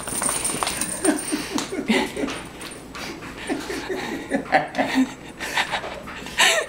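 People laughing in short bursts of chuckles, over taps and scuffs of a small dog's new rubber boots on a tile floor as it walks stiffly in them.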